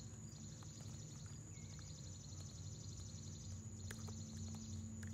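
Faint outdoor ambience: a steady low hum under a steady high-pitched whine, with a few faint clicks.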